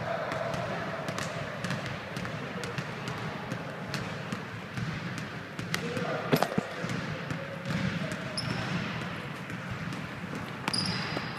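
Basketball bouncing and thudding on a wooden gym court during a pickup game, in scattered impacts, with players' voices talking in the background.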